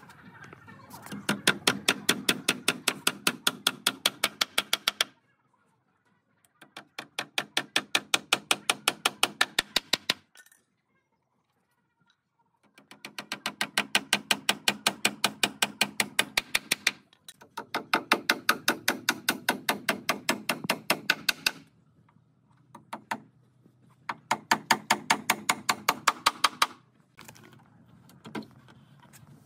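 A power tool clicking rapidly and evenly, about five or six sharp clicks a second over a low steady drone. It runs in bursts of three to four seconds separated by short pauses.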